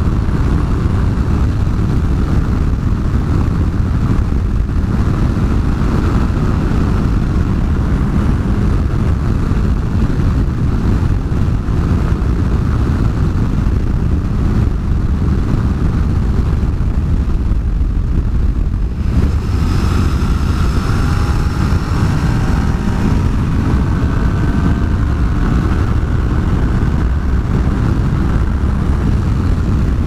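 Wind rushing over the camera microphone on a moving motorcycle, with the Yamaha FZ-09's three-cylinder engine running underneath. About two-thirds of the way in, the engine's whine comes through more clearly, its pitch shifting up and down.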